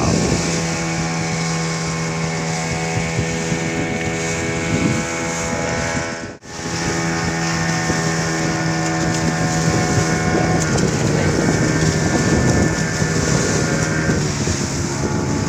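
Small boat's engine running at a steady pitch, with wind buffeting the microphone. The sound cuts out for a moment about six seconds in.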